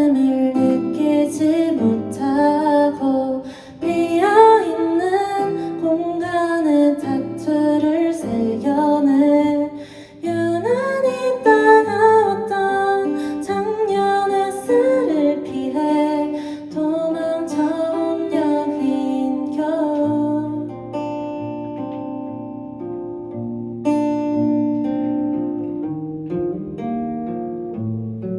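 A voice singing a melody over acoustic guitar accompaniment; the singing stops about two-thirds of the way through, leaving the guitar playing alone.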